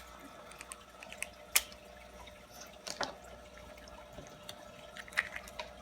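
A toy surprise egg being handled and opened: a few sharp, light clicks and taps several seconds apart, the strongest about a second and a half in, with a quick run of small clicks near the end.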